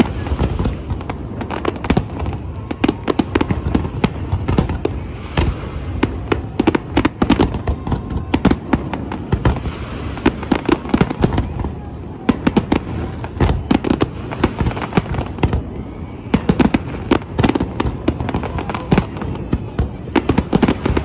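Aerial fireworks display: shells bursting in a rapid, uneven run of sharp bangs over a steady low rumble, with denser clusters of reports every few seconds.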